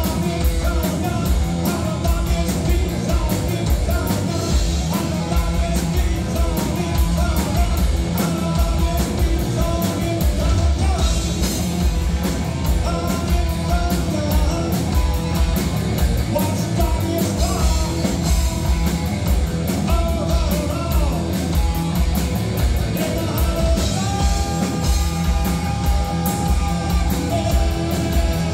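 Live rock band playing: a singer over distorted electric guitar, bass guitar and a drum kit, with a note held for a few seconds near the end.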